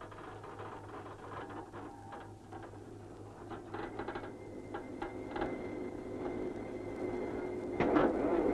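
Construction-site machinery running with irregular metallic clanks and knocks over a steady low hum, slowly getting louder; a louder machine sound comes in sharply near the end.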